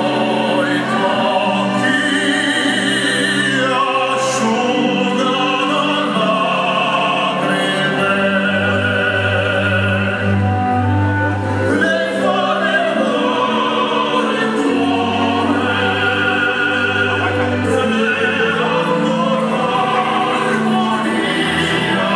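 Operatic singing with vibrato over orchestral accompaniment, with sustained low bass notes beneath.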